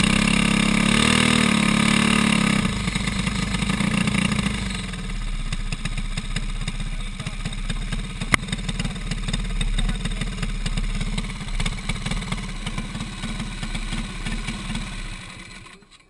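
A racing kart's single-cylinder four-stroke clone engine, revved for a couple of seconds, then idling, with one sharp click about eight seconds in. The engine cuts off just before the end.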